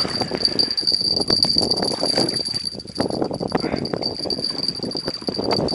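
Spinning reel being cranked with fast, uneven clicking as a hooked carp that is still fighting is reeled in close to the bank.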